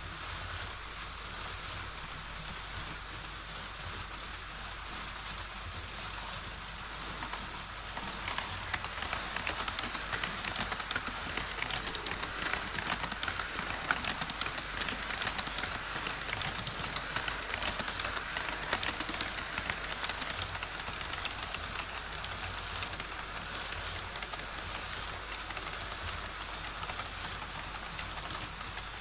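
HO scale model trains running through a model truss bridge on KATO Unitrack, an E5 Shinkansen set and then a freight train: a steady rush of wheels on rail with fast fine clicking. It grows louder about eight seconds in as the trains pass close and eases off toward the end.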